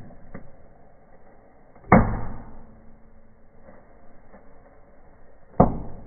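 Two firecracker bangs from fireplace fireworks going off inside a closed stove firebox behind its glass door, one about two seconds in and one near the end, each with a short fading ring. Faint crackles come in between.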